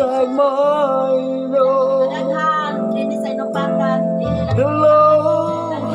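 A song playing: a singing voice over guitar with a steady bass line.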